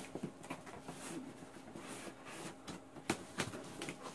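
Faint rustling and scraping of a cardboard shipping box and its packing as a boxed item is pulled out, with a few short knocks, the clearest about three seconds in.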